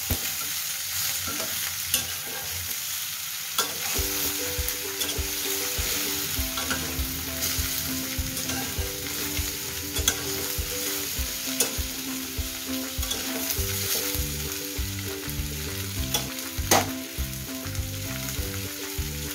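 Prawns, sliced onions and green chillies sizzling in hot oil in a steel kadai, with a metal spatula scraping and clicking against the pan as they are stirred.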